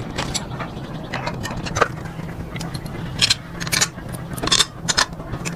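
An engine running steadily with a low hum, under repeated sharp metallic clinks and scrapes like tools or parts being handled.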